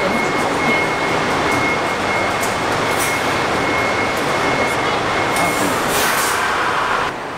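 Mitsubishi Fuso diesel coach idling at its bay: a steady loud rumble and hiss, with a thin, steady high whine over most of it. The level drops suddenly near the end.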